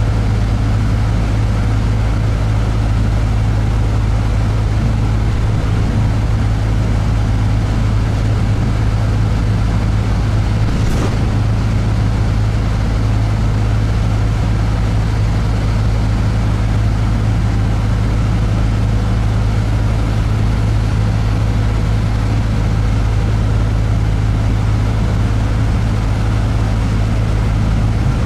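Steady low drone of an airport apron bus driving, heard from inside the cabin, with one short click about eleven seconds in.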